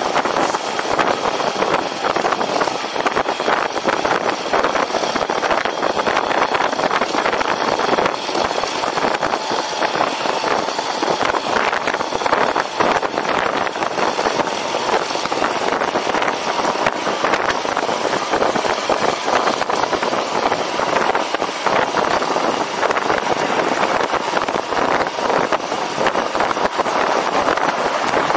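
Steady rushing noise of riding a personal electric vehicle through city streets, with a faint steady whine running under it.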